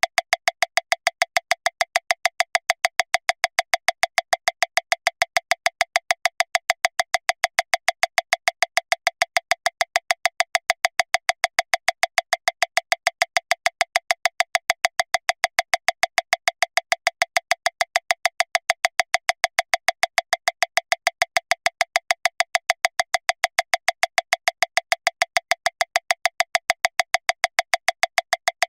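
Metronome clicking steadily at 405 beats per minute, one click every 0.148 seconds, nearly seven a second, every click at the same level.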